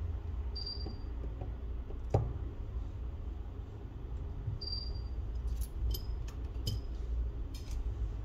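Handling noise as a battery is set into a Samsung Galaxy Note 10 Plus frame and pressed down by hand: one sharp knock about two seconds in, then a few light clicks and taps near the end, over a steady low rumble.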